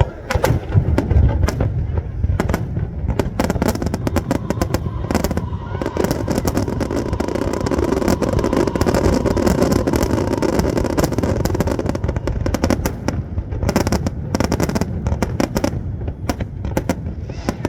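Fireworks going off: a rapid, irregular string of bangs and crackles, thickening into a dense, continuous crackling barrage in the middle.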